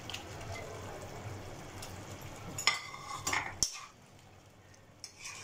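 Masala gravy bubbling in a kadhai as fried banana pieces are dropped in and stirred with a metal spoon, which clinks sharply against the pan a few times about three seconds in. After the clinks the bubbling goes quieter.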